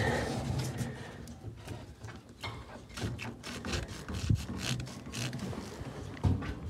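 Rubber primer bulb on an outboard fuel line being squeezed by hand again and again, giving irregular short rubbing and clicking sounds. It is pumping fuel to start a siphon out of the boat's fuel tank.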